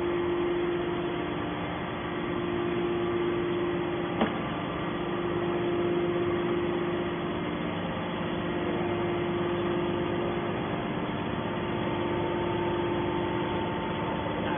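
Hydraulic scrap metal baler running steadily, its power unit giving a constant hum with held tones, with a single sharp click about four seconds in.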